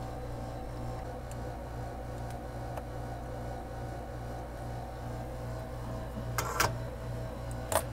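A steady low hum, with a couple of short light clicks, one about six and a half seconds in and one near the end.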